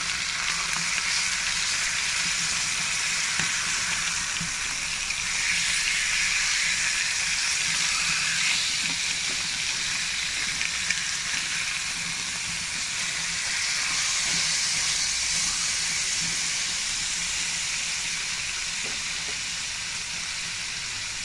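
Pork slices in miso sauce sizzling in a frying pan: a steady frying hiss as the sauce bubbles around the meat.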